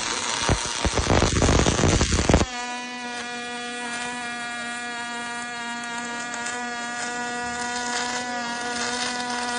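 Robotic MIG/MAG welding arc crackling and spitting for about two and a half seconds, then cutting off abruptly. A steady electric hum carries on after it.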